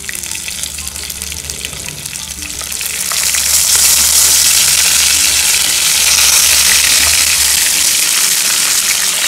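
Masala-stuffed small brinjals being laid one by one into hot oil in a frying pan. The oil sizzles, and the sizzle grows clearly louder about three seconds in as more brinjals go in.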